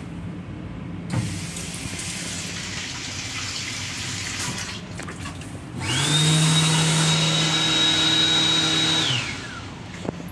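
Sink unit in a Metro-North M7 railcar restroom: the sensor faucet runs water for about three and a half seconds. Then the built-in hand dryer's motor whines up to a high steady pitch, runs for about three seconds and winds down, over the steady low rumble of the moving train.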